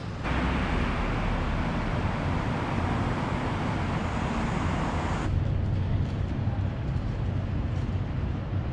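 City-street traffic: a steady low rumble of passing vehicles, with a louder hiss of traffic for the first five seconds that cuts off suddenly.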